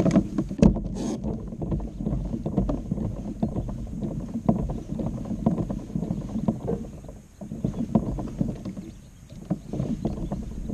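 Kayak moving through the water: continuous uneven splashing and water slapping against the hull, with a couple of sharp knocks right at the start.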